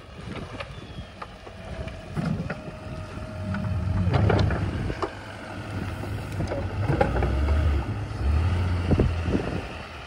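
Engine of a snow-plowing machine running and working, growing louder in stretches as it pushes snow. Several sharp knocks from the plow gear land about four, seven and nine seconds in.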